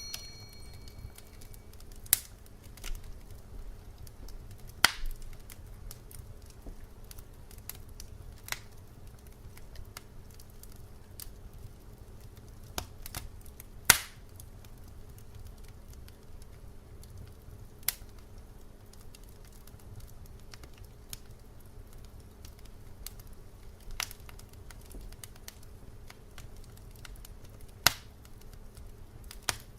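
Wood fire crackling: sharp, irregular pops and snaps every second or few seconds over a low, steady rumble. A brief high tone sounds at the very start.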